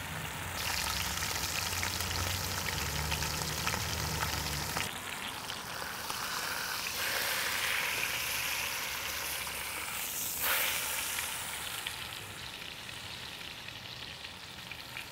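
Beef brisket-point roast searing in smoking-hot vegetable oil in a cast iron Dutch oven: a steady sizzle with fine crackling. It swells briefly louder about ten seconds in.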